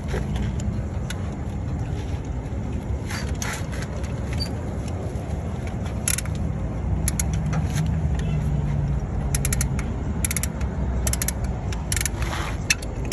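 A vehicle engine running steadily with a low rumble, over scattered sharp metallic clinks and scrapes as tow chains and the crash-damaged car body are handled.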